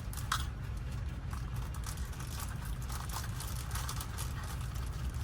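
Faint light clicks and rattles of small lock parts being handled while wafers and springs are fitted into a door lock cylinder, over a steady low rumble.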